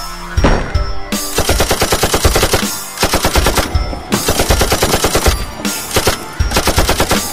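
Loud, driving soundtrack music built on rapid staccato hits, about ten a second, in long runs broken by short pauses, sounding like machine-gun fire.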